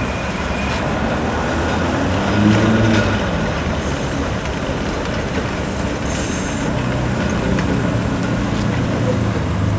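Electric heritage tram running, a steady mix of motor and rolling noise with a low hum.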